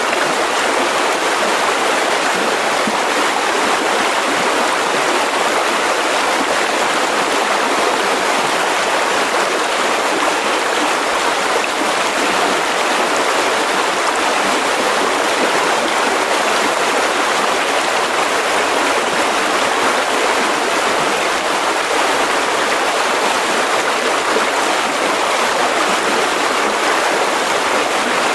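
Mountain river flowing: a steady, even rush of water over rocks, with no change in level.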